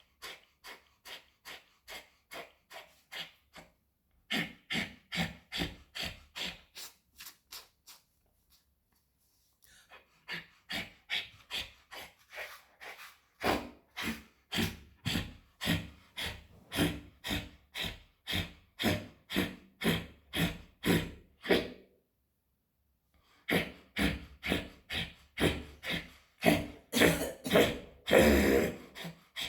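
Kapalbhati breathing: a man's rapid, forceful exhalations through the nose, about two sharp puffs a second, in runs of several seconds broken by short pauses. The puffs near the end are the loudest.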